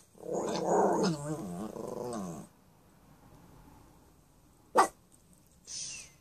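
A dog growling for about two seconds, its pitch wavering up and down. A sharp click follows a couple of seconds later, then a short hiss near the end.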